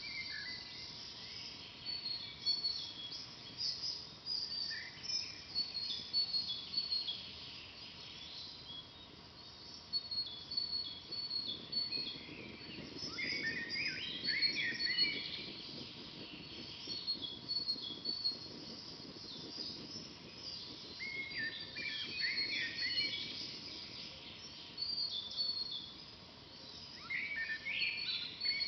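Songbirds chirping and singing: short high chirps repeat throughout, with fuller warbling song phrases about halfway through, again a little later and near the end.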